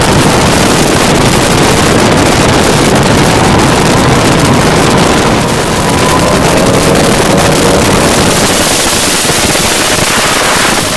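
Loud wind buffeting the microphone over the running engine and water rush of an open speedboat at speed. From about halfway through, faint steady engine tones join in as a second speedboat runs close alongside.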